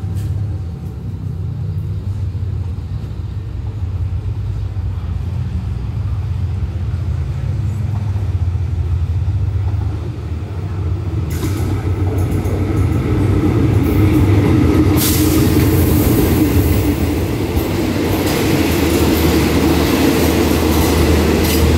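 Diesel-hauled express passenger train pulling into a station to stop. A low engine hum grows louder as it approaches. About eleven seconds in the noise of wheels and carriages rolling past comes in, and it grows fuller about fifteen seconds in.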